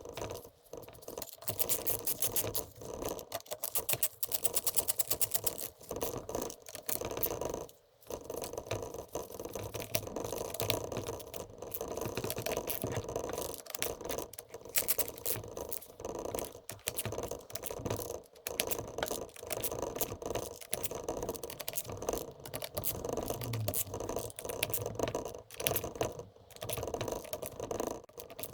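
Rapid, irregular clicking and rattling of hand tools and small metal parts being worked on during disassembly of an SST transmission's mechatronics unit.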